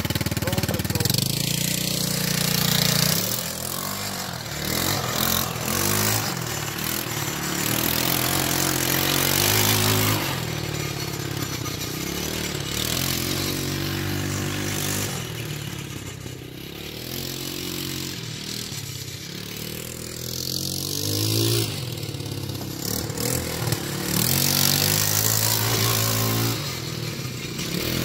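A TaoTao 150cc single-cylinder four-stroke ATV engine being ridden, its pitch climbing and dropping over and over as the throttle is opened and eased off. Bursts of rushing noise come and go with it.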